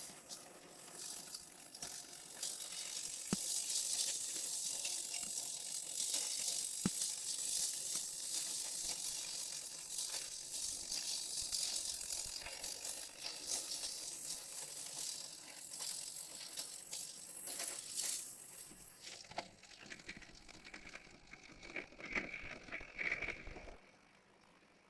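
Dense mechanical clicking and rattling, like small gears or a ratchet, thinning out about 19 seconds in to fainter rattles that stop near the end.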